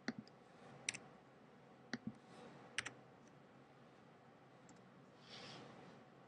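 Faint, sharp clicks of computer keyboard keys, four about a second apart, some in quick pairs, then a soft brushing noise near the end.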